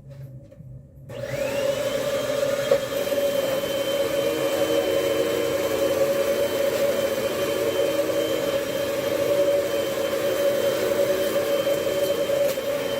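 Hoover vacuum cleaner switched on about a second in. Its motor spins up with a rising whine that levels off, then runs steadily with a strong hum.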